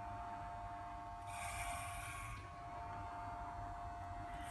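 Corded electric hair clippers buzzing steadily as they shave hair off a head, with a brief hiss in the middle.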